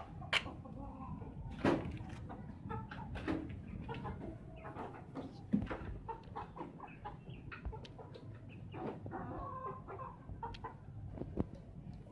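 Aseel rooster clucking in short, irregular calls, mixed with scattered clicks and scuffs.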